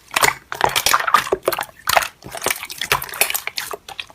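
Slime being squished and worked by hand: a quick, irregular run of wet clicks and small pops.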